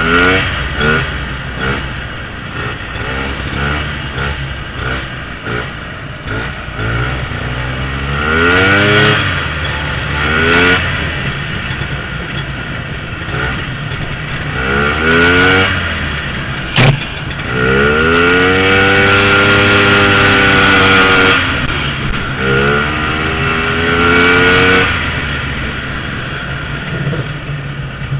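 Vintage snowmobile engines running on the move, revving up and easing off several times, with the longest climb in pitch about two-thirds of the way through. A single sharp knock comes just before that long rev.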